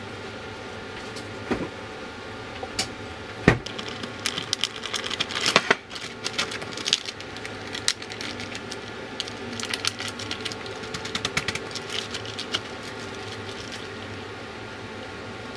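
Plastic zipper bag of milk being handled on a countertop: crinkling and rapid small clicks as the zip seal is pressed shut and the bag is flattened, with one sharper knock about three and a half seconds in.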